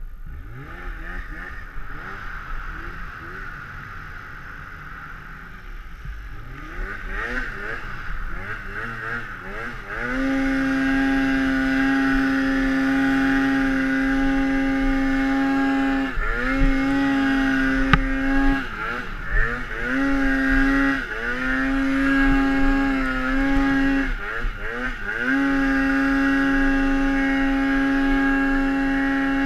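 Polaris Axys RMK two-stroke snowmobile engine in deep powder. At first it runs at lower, varying revs. About a third of the way in it goes to full throttle and holds a steady high pitch, the tuned clutching keeping it at constant rpm under load. The revs briefly drop and climb back several times, under a hiss of track and snow.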